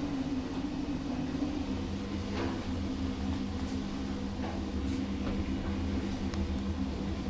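Lift car travelling down between floors, a steady hum from the lift machinery over a low rumble, heard from inside the car.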